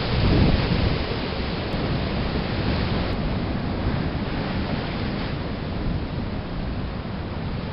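Ocean waves breaking and washing over shoreline rocks, a steady rush of surf with a louder surge in the first second.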